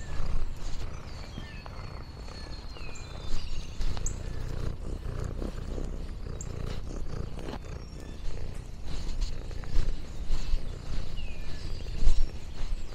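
Domestic cat purring, a low, uneven rumble.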